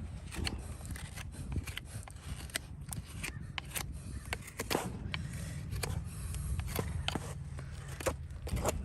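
Farrier's hand tools working a horse's hoof: irregular sharp clicks and scrapes of steel on hoof horn, over a low steady hum.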